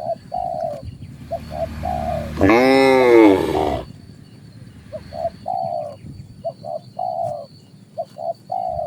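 A dove cooing over and over in a repeated short-short-long phrase. About two and a half seconds in, a cow moos once, a single drawn-out call that rises and falls and is the loudest sound.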